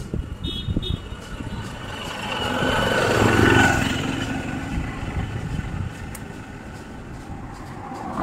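A motor vehicle passing on the road, its sound rising over a couple of seconds, peaking about three and a half seconds in, then fading, over steady traffic noise.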